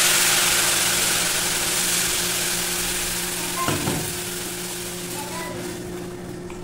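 Water poured from a kettle into a hot pot of rice and carrots, sizzling loudly as it hits the pan; the sizzle starts suddenly and slowly dies down. A brief knock comes a little under four seconds in, as stirring with a wooden spoon begins.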